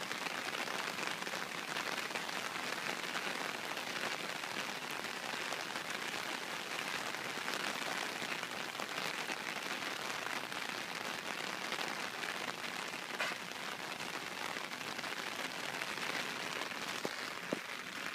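Rain falling steadily on flooded ground, an even hiss with a few sharper drops or ticks.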